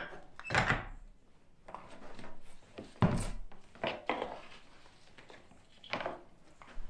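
A band clamp's corner pieces and strap being handled and fitted around an MDF picture frame on a wooden table: a string of short knocks and rustles, the loudest a sharp knock about three seconds in.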